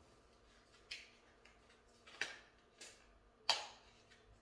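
Faint handling noises: a few separate clicks and taps of a small cardboard cosmetics box being turned over in the hands, the sharpest about three and a half seconds in.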